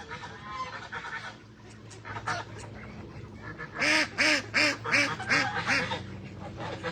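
Domestic ducks and geese calling. Softer calls come first, then a little before halfway a rapid run of about six loud honks, roughly three a second.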